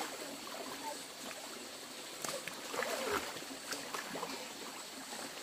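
Shallow rocky stream running steadily, with a few splashes about halfway through as a small child is dipped and bathed in the water.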